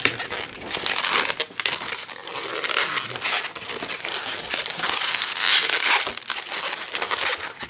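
Latex modelling balloon being twisted and handled: the rubber rubbing and scrunching in the hands as a run of short scraping noises, loudest about a second in and again around five and a half seconds in.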